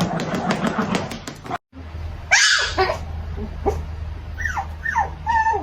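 Small puppy yapping: several short, high barks that each fall in pitch, with one sharp yelp before them. It opens with a burst of clicking and rustling that cuts off about a second and a half in.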